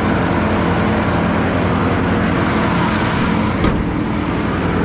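Car engine running steadily with road noise while driving, with one sharp click about three and a half seconds in.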